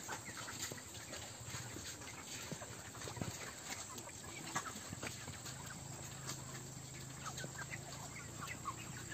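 A large flock of broiler chickens clucking and peeping, with many short calls overlapping throughout.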